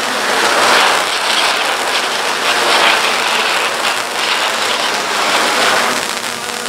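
Fountain firework burning with a steady loud hiss as it sprays sparks, hung beneath a hovering quadcopter drone whose propeller noise mixes in.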